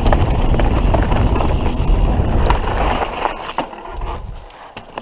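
Canyon Spectral full-suspension mountain bike rolling fast down a dirt trail: tyre noise and rushing wind on the microphone, with many small rattles and clicks from the bike. The noise falls away after about three and a half seconds.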